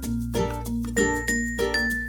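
Background music: a melody of short, ringing notes, several a second, over held bass notes.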